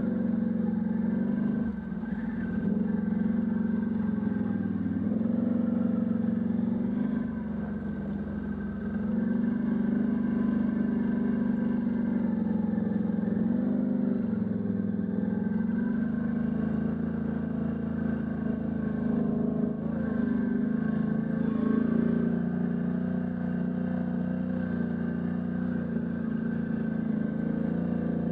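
Can-Am Outlander ATV engine running at a steady trail-riding pace, its revs wavering a little and easing off briefly a couple of times.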